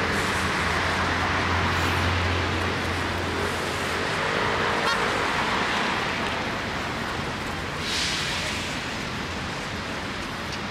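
City street traffic on a rain-wet road: a low engine hum for the first few seconds and a constant tyre-and-traffic hiss, with a brief louder hiss about eight seconds in.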